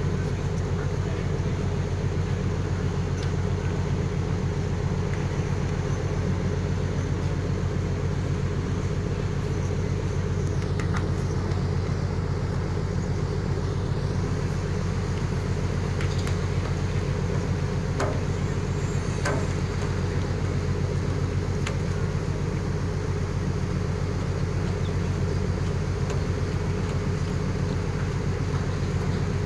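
Steady low drone of a ferry's diesel engines running while docked, with a few faint short knocks around the middle.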